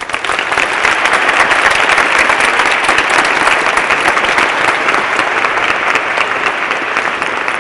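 Audience applause breaking out all at once and going on steadily.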